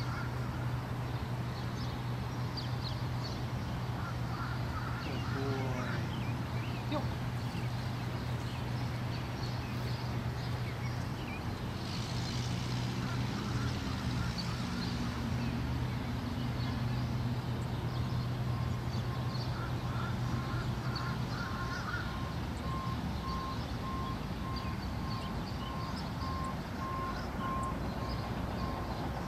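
Outdoor background: a steady low hum and a wash of distant noise, with scattered faint chirps. The hum stops about two-thirds of the way through, and from about the same point a faint beep repeats at an even pace.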